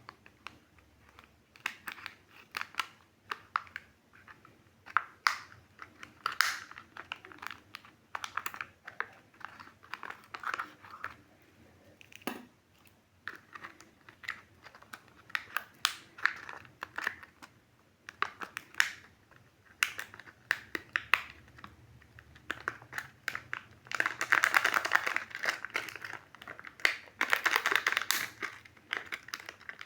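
Surprise-egg packaging being handled and unwrapped: crinkling wrappers and many small clicks and taps, with two longer spells of dense crinkling near the end.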